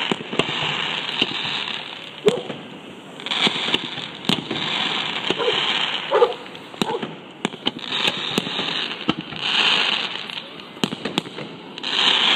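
Fireworks display: sharp bangs of shells bursting again and again, with patches of crackling about a second long in between.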